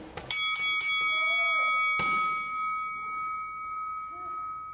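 Boxing round bell: four quick rings about a quarter second apart, then a fifth strike that rings on and slowly fades, marking the end of the round.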